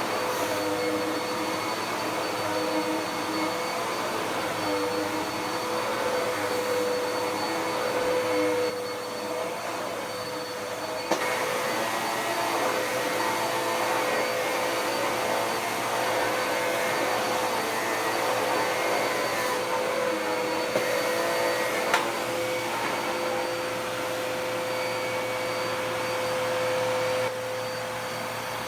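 Dirt Devil PowerMax Pet upright vacuum cleaner running on carpet, a steady motor whine over suction noise. It dips in loudness for a couple of seconds around the middle and again near the end, with a couple of brief clicks.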